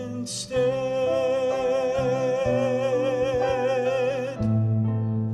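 Southern gospel male quartet holding one long sung note with vibrato over instrumental accompaniment. The voices stop about four seconds in, and the accompaniment plays on.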